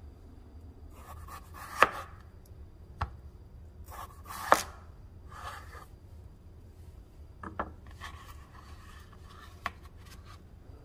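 Kitchen knife slicing a peeled russet potato into rounds on a bamboo cutting board: about five slow separate strokes, each a short rasp of the blade through the potato ending in a sharp knock on the board.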